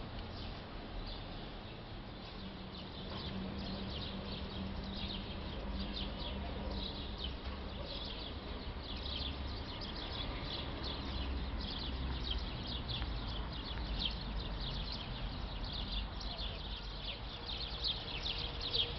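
Many small birds chirping without pause, busier in the second half, over a steady low rumble.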